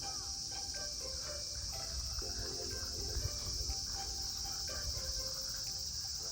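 Steady high-pitched chirring of insects, with music underneath.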